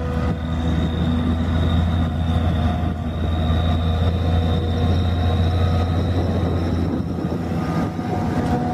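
Self-propelled forage harvester chopping grass and blowing it into a trailer driven alongside by a tractor: a steady engine drone with a thin high whine over it.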